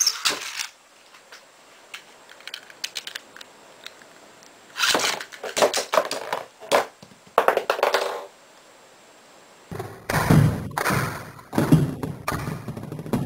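Metal Fight Beyblade tops knocking and scraping against each other and the stadium in a battle: scattered clicks, then clusters of sharp clashes, with heavier, deeper knocking and rattling in the last few seconds.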